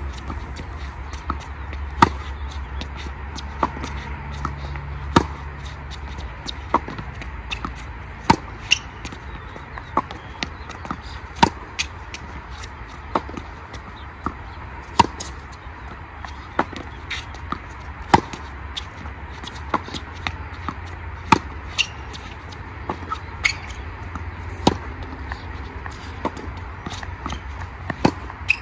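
Tennis balls struck by racquets and bouncing on a hard court during a rally, a string of sharp pops every second or so, some loud and some softer, over a steady low rumble.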